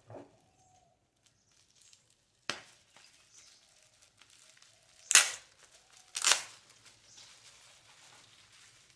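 RAM module's packaging being handled: three short, sharp crinkling snaps of plastic or paper packing, the loudest two about a second apart past the middle.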